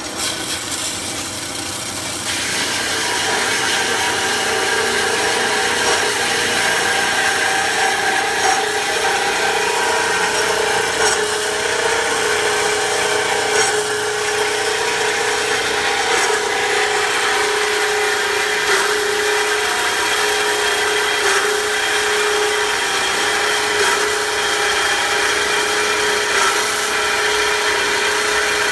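Ellis horizontal metal-cutting bandsaw running, its fine-tooth blade sawing steadily through a round steel tube. The machine starts up, then gets louder and brighter about two seconds in as the teeth bite into the cut. A faint tick every couple of seconds fits the blade's welded joint passing through the cut, which is a normal bump.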